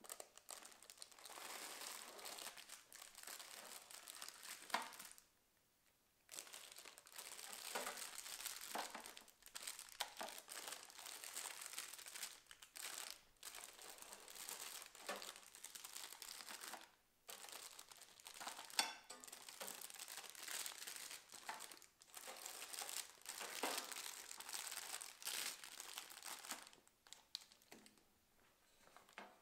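Clear plastic packaging bags crinkling and rustling as the bagged raclette pans and spatulas are handled and unpacked, with a few sharper clicks among the crinkling and a brief pause about five seconds in.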